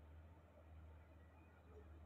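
Near silence: a faint, steady low hum.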